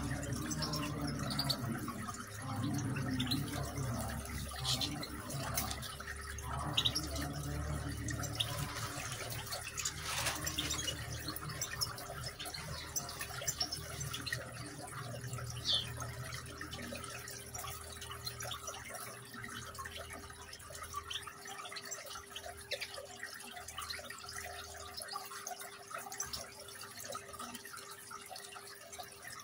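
Water trickling and dripping in a small decorative rock fountain.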